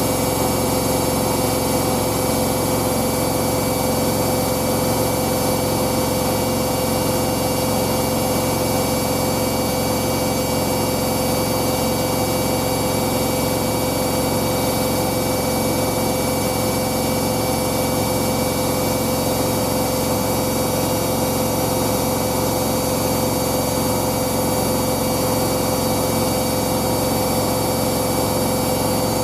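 Hoover DYN9144D3X front-loading washing machine spinning a load of towels at a steady speed: an even motor whine with several steady tones over the rush of the drum.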